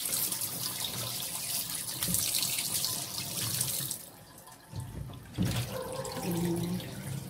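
Kitchen tap running into a stainless steel sink as a fish is rinsed under the stream; the water stops about four seconds in, followed by a few low knocks of handling in the sink.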